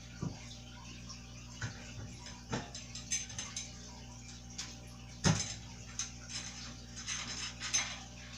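Scattered light clicks and taps of toddler-bike parts being handled and fitted during assembly, with one louder knock about five seconds in.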